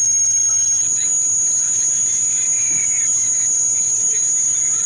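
A loud, steady, high-pitched continuous whine or trill that holds one pitch throughout, with a faint short falling chirp about halfway through.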